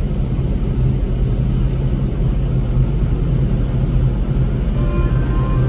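A ship's engine rumbling steadily, a low drone with a noisy hiss over it. Music notes come in near the end.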